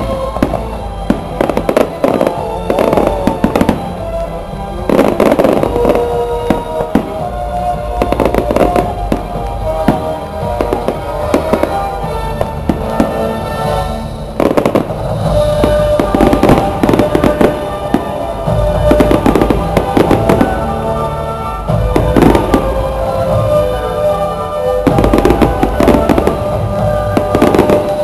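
Fireworks display going off in flurries of bangs and crackling stars, over music playing along with the show.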